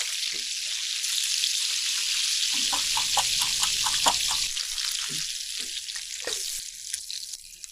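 Chicken thighs frying in butter and vegetable oil in a pan: a steady sizzle with crackles of spitting fat, dropping off near the end.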